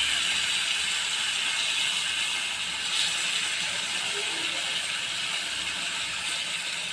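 Fish pieces shallow-frying in hot oil on a tawa: a steady crackling sizzle that eases off slightly over the seconds.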